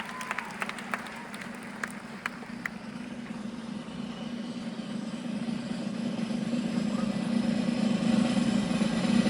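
The last scattered claps of an audience die away in the first few seconds, then a low steady hum builds gradually louder.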